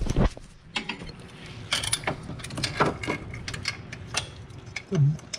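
Hand socket ratchet with a 13mm socket and extension clicking in short, irregular strokes on a tight exhaust manifold bolt, with a sharp knock at the very start.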